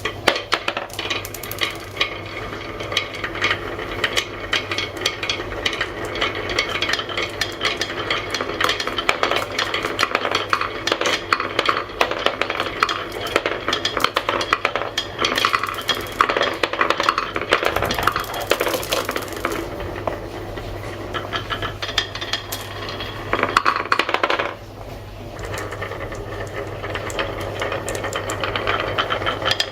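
Many marbles rolling and clattering down a wooden marble run: a dense, continuous stream of clicks and knocks over a steady low hum, briefly quieter about three-quarters of the way through.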